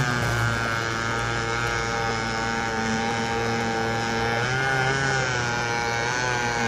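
The 31 cc two-stroke string-trimmer engine of a sixth-scale Sunny Jim thunderboat hydroplane running at speed, a steady engine note whose pitch dips and climbs back about four and a half seconds in.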